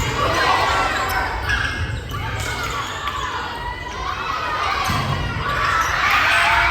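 Basketball bouncing on a gym floor in a large echoing hall, with spectators' voices and shouts throughout. The crowd noise swells near the end.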